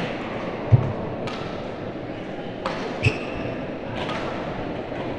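Badminton doubles rally on an indoor court: a few sharp racket hits on the shuttlecock and thuds of players' feet landing, the loudest a heavy thud just under a second in, over steady background noise of the hall.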